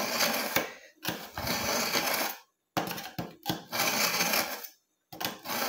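Kitchen knife drawn repeatedly through the slot of a BAUM ZINDECH ZRT-400 manual pull-through sharpener: steel scraping on the sharpening inserts in about four strokes, each lasting about a second, with short breaks between them.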